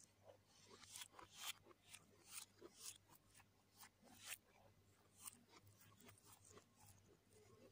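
Fingers mixing and scooping fried rice on a plate: an irregular run of soft crackly rustles and small ticks, over a faint steady low hum.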